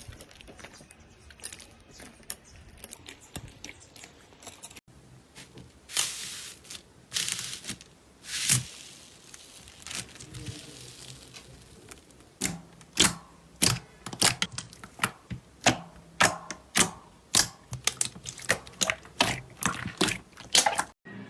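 Slime being worked by hand: faint crackling at first, then after a cut some louder squishes, and in the second half a steady run of sharp pops and clicks, about two a second.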